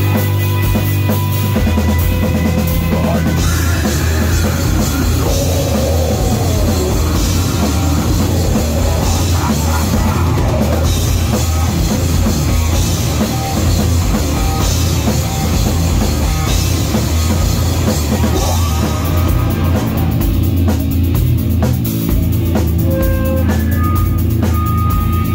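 Nu-metal band playing live at full volume: heavy down-tuned seven-string guitars, bass and a pounding drum kit with cymbals, heard through a phone's microphone close to the stage.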